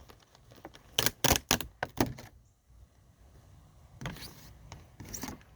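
Kitchen handling sounds as a salad is being prepared: a cluster of sharp clicks and knocks about a second in, then softer rustling and a knock near the end.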